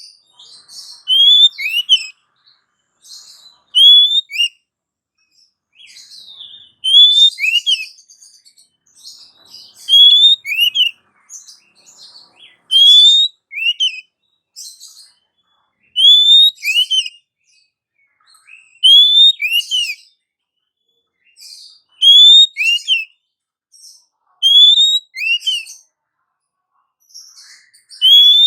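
Female Oriental magpie-robin (kacer) calling to a male. It repeats a short phrase of sweeping whistled notes about every three seconds, with pauses between phrases.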